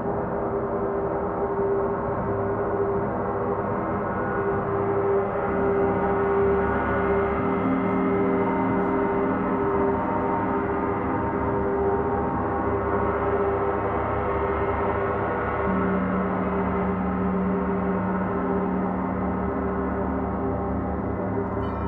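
Large gongs played with soft mallets in a gong bath: a dense, sustained wash of overlapping ringing tones at a steady loudness, with new low tones swelling in every few seconds as the gongs are struck again.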